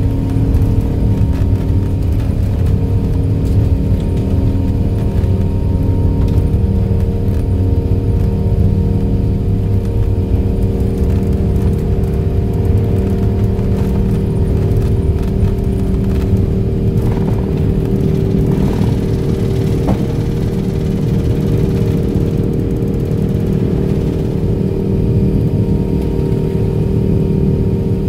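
Airbus A380 cabin noise during the takeoff roll and initial climb: the engines at takeoff thrust make a loud, steady drone with a constant hum over a low rumble.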